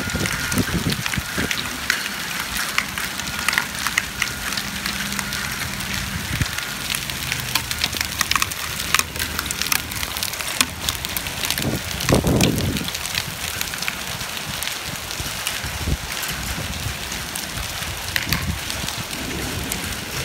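Hail and heavy rain pelting a concrete sidewalk: a dense, steady hiss of rain packed with many sharp ticks of hailstones striking the pavement. A brief low rumble about twelve seconds in.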